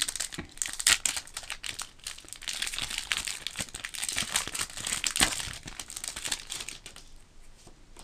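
Foil wrapper of a Pokémon Emerging Powers booster pack crinkling and tearing as it is torn open by hand, in many quick crackles that thin out after about five seconds.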